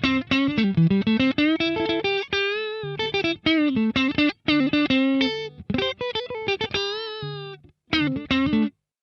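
Fender Stratocaster electric guitar played through a Boss Katana 50 MkII amplifier's clean channel, recorded direct from the amp's USB out. It plays a single-note melodic line of quickly picked notes with string bends and vibrato, dry with little reverb, and stops just before the end.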